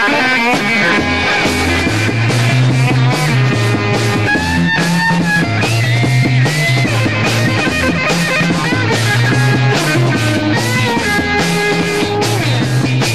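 Early-1970s psychedelic rock recording, instrumental passage: electric guitar lead lines with bent, sliding notes over a steady bass line and drum kit.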